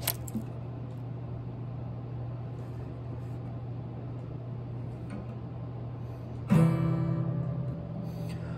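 Acoustic guitar: a single chord strummed about six and a half seconds in and left to ring, fading. Before it there is only a steady low hum, with a click at the very start.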